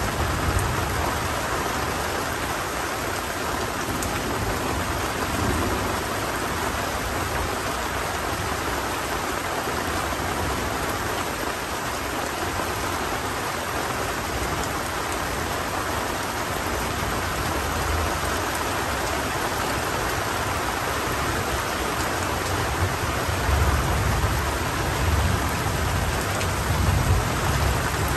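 Heavy tropical rain falling steadily through forest, a dense even hiss. Low rolling thunder rumbles under it, swelling near the end.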